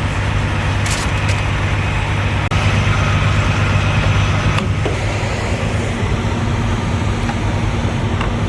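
Diesel semi-truck engine idling: a steady low drone with a few light clicks over it.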